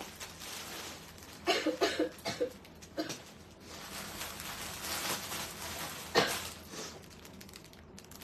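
A woman with a cold coughing several short times about a second and a half in, followed by handling noise and one sharp knock about six seconds in.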